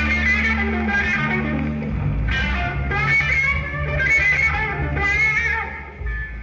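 A live blues-rock trio playing, led by an electric guitar with bending, wavering notes over a steady bass line, in a rough, low-fidelity audience recording. The playing drops away briefly near the end.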